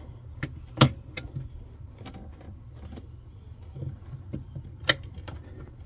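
Two sharp clicks about four seconds apart as the reset levers of two battery circuit breakers are pushed down, closing the chassis and house battery circuits. Small handling ticks fall between them, over a steady low hum.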